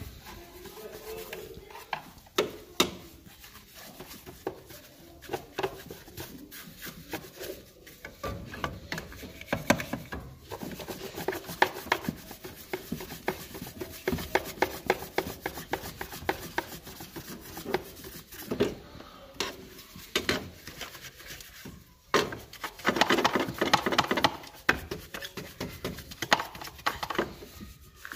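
Bristle brush scrubbing degreaser foam on engine-bay parts and hoses: quick, irregular scrubbing strokes that come thicker and harder for a moment about two-thirds of the way through.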